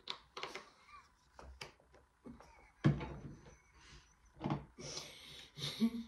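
A man stifling laughter behind his hand, with short muffled snorts and breaths and a few scattered clicks and knocks. The loudest bursts come just under halfway through and again near the end.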